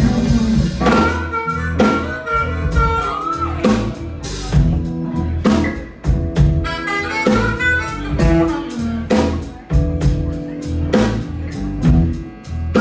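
Live electric blues band playing: an amplified harmonica, played cupped against a handheld microphone, holds and bends notes over two electric guitars and a drum kit keeping a steady beat.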